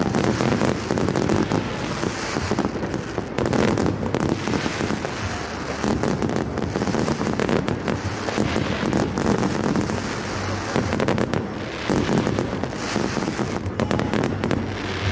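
Fireworks display: aerial shells bursting in a dense, continuous barrage of overlapping bangs with no pause.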